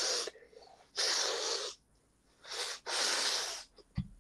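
Three loud breathy rushes of air close to the microphone, each about half a second to a second long, with gaps between them. A short low thump comes near the end.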